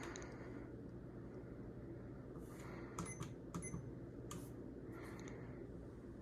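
A few short, sharp clicks, bunched about three to four and a half seconds in, over a faint steady low hum.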